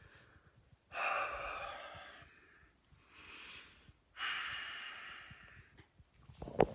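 A nauseous man breathing heavily through his mouth: two long breaths out about three seconds apart, with a quieter breath in between, the slow breathing of someone holding back the urge to vomit. A short sharp click near the end.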